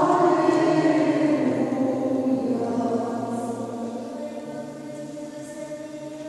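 Choir singing a slow, sustained chant, loudest at the start and slowly fading.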